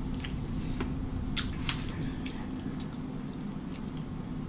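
Eating and drinking sounds from a person taking a sip and handling food: scattered small mouth and handling clicks, two sharper ones a little over a second in, over a steady low hum.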